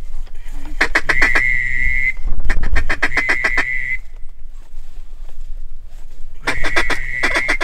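Hunter's duck whistle blown in three bursts of about a second and a half each, a steady high tone with a rapid flutter, calling to ducks over the decoys.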